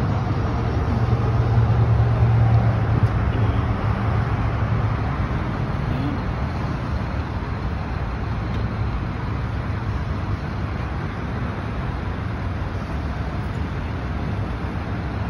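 A heavy vehicle's engine running steadily with a low hum over road traffic; the hum is louder from about a second in and eases after about five seconds.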